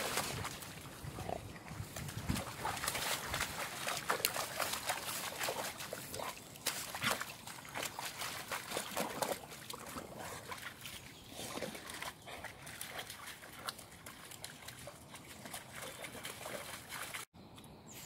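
A collie-vizsla cross dog nosing about in a muddy puddle, its snout and paws splashing and sloshing the water in irregular bursts.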